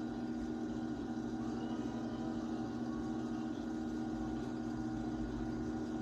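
Electric pottery wheel motor running at a moderate speed, giving a steady, even hum that holds one pitch.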